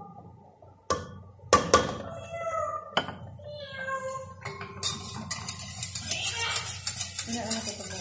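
A few sharp knocks of a wooden spoon against a steel cooking pot, and a grey parrot whistling and chattering. About five seconds in, a rapid crackling hiss joins.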